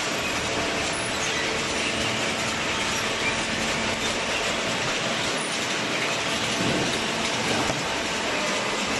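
Horizontal cardboard baler running, a steady mechanical noise with no pauses.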